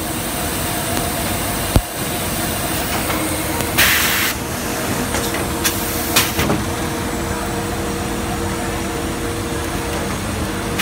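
Plastic garbage-bag cutting machine running with a steady hum. There is a sharp click about two seconds in, a short burst of hiss near the four-second mark, and a couple of lighter clicks after it.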